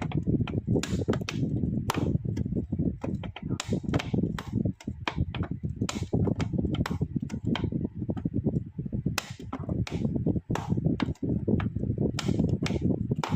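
Irregular sharp knocks and clicks, several a second, over a continuous low noise.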